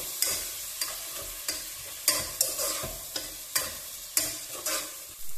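Spatula stirring and scraping onion-tomato masala in a coated pot, about two strokes a second, over the steady sizzle of the masala frying with a little water added.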